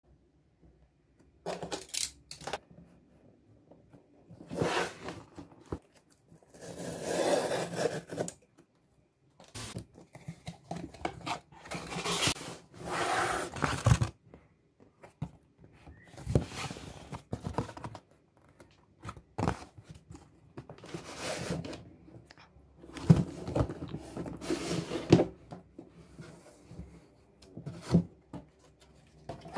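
Corrugated cardboard shipping box being opened and handled by hand: tearing and scraping in irregular bursts of a second or two, with quiet gaps between, as the flaps are worked open and the boxed laptop is slid out.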